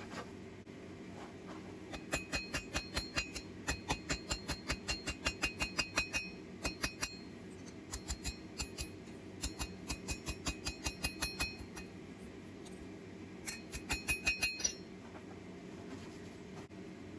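Hammer striking steel on an anvil in several quick runs of blows, about three to four a second with short pauses between runs, each blow ringing brightly. A steady hum runs underneath.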